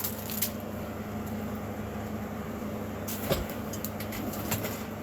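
Steady low hum of room background noise, with a few light clicks and taps from handling packages, the clearest a little over three seconds in.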